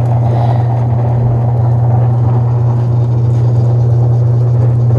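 Converted treadmill's motor driving two sanding belts side by side over its rollers, running with a steady low hum. The belts are not yet tracking straight and are drifting toward the edge of the rollers.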